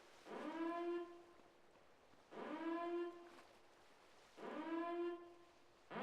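Daemond siren sounding three times, a horn-like tone that sweeps up in pitch and holds for about a second, repeating about every two seconds.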